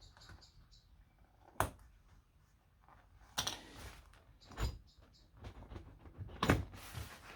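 A Mk1 Audi TT seat headrest being worked down into its guide sleeves and plastic clips with a seatbelt guide fitted. There is a sharp click about one and a half seconds in, then a few short scraping and rubbing noises of plastic and metal.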